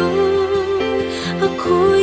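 Pop song music: a long-held melody line wavering in vibrato over a steady accompaniment.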